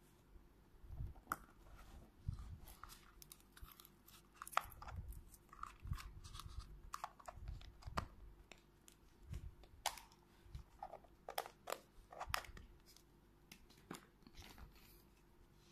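Small hard-plastic toy figures and plastic capsule eggs being handled: an irregular string of sharp plastic clicks and taps, with short crinkly scrapes in between.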